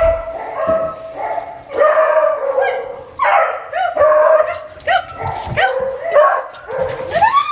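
Several beagles barking and baying over one another, loud and without a break, with long calls that rise and fall in pitch.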